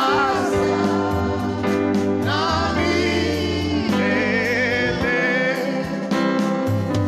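Live gospel worship singing: a woman's voice into a microphone, with wavering held notes, over a steady sustained instrumental backing with low bass notes.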